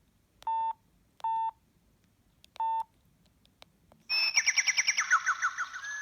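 Samsung SGH-C100 mobile phone: three short key-press beeps, then about four seconds in a preloaded ringtone starts, a rapid run of short electronic notes.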